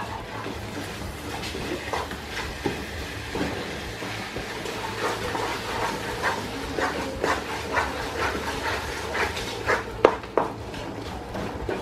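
Wooden spoon stirring grated coconut through melted panela syrup in a pot, with repeated scrapes and light knocks of the spoon against the pot, over a low steady hum.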